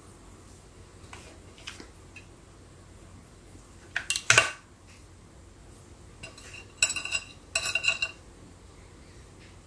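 Small hard kitchen items clinking and rattling together as they are handled: a few light taps, then a loud clatter about four seconds in and three shorter ringing clinks between six and eight seconds.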